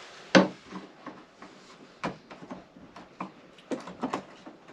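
Irregular sharp clicks and taps of hand tools, a metal straightedge and a bevel gauge, being set against wooden boat frames while a cut is marked out. The loudest comes about a third of a second in, with others near the middle and a quick cluster near the end.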